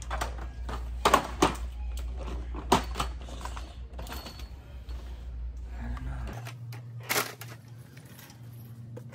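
Wire shopping cart rattling as it is pushed, with scattered sharp clacks over a steady low hum. About six seconds in, the low hum gives way to a slightly higher one.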